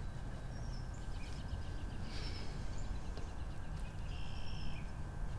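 Birds chirping and trilling in short scattered phrases over a steady low background rumble.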